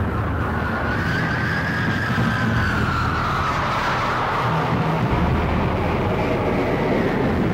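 A rumbling droning soundtrack with a faint high tone that rises slowly and then falls away.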